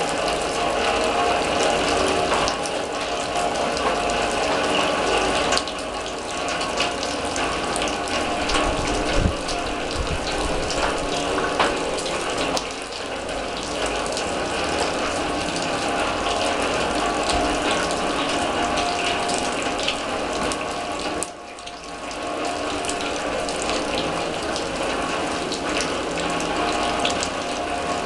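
Rain falling on a steel drum: a dense, steady rattle of drops striking the metal, briefly easing for about a second around three-quarters of the way through.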